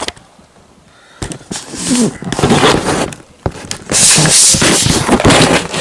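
Loud rustling, scraping and crackling handling noise close to the microphone, in two stretches of a couple of seconds each, with a few sharp clicks.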